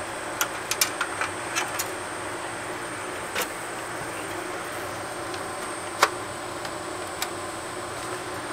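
Scattered light clicks and taps of a CD player's parts being handled and fitted back together, over a steady background hiss; the sharpest click comes about six seconds in.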